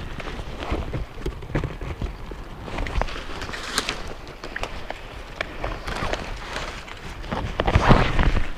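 Water splashing and sloshing, with scattered clicks and rustling from handling, as a trout is unhooked and let go back into the stream; the loudest splash comes near the end.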